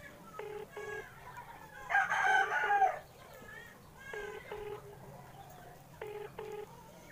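A phone call tone plays over a speakerphone: a short double beep repeats about every two seconds while the call goes unanswered, and the line turns out busy. About two seconds in, a rooster crows once, the loudest sound, lasting about a second.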